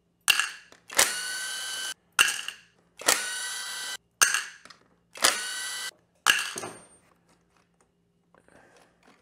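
Cordless drill/driver running in short bursts about a second apart, each a sharp click followed by a steady whine, as it spins the clutch pressure-plate bolts out. The bursts stop about seven seconds in, followed by faint light clinks.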